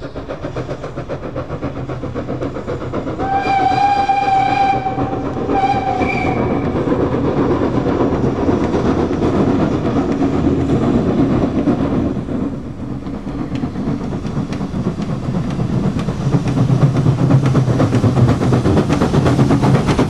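Danish class F 0-6-0 tank steam locomotive No. 656 working hard as it approaches, its exhaust beating steadily and growing louder as it comes close. Its steam whistle blows twice, a long blast about three seconds in and a shorter one just after.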